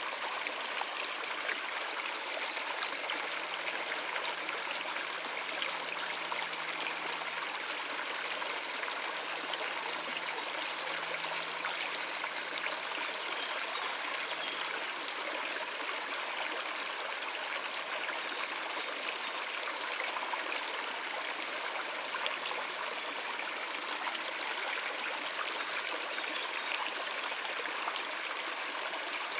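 Shallow stream water running and splashing over rocks in a steady, unbroken babble.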